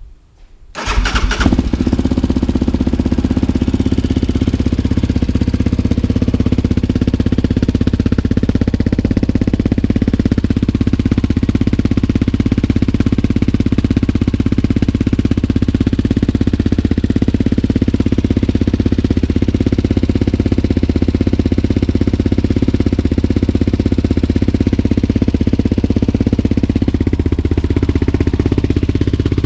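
Yamaha Raptor 700R's single-cylinder four-stroke engine, breathing through a Big Gun EXO full exhaust, fires on a cold start about a second in and settles into a steady idle. The owner says it is running a little rich.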